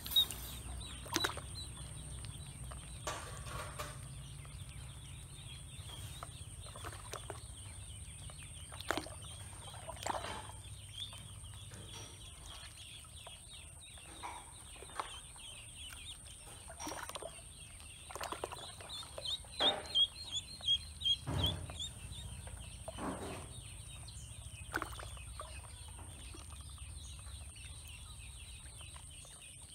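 Ducklings peeping in short high calls, with a quick run of peeps about twenty seconds in, along with soft splashes and taps as they swim and dabble in a shallow plastic basin of water.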